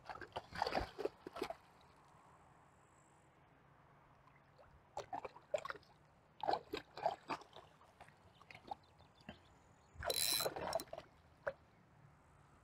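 A small hooked rainbow trout splashing at the surface in several short flurries while it is played on a light spinning rod, mixed with clicks and brief buzzes from the spinning reel; the loudest flurry comes about ten seconds in.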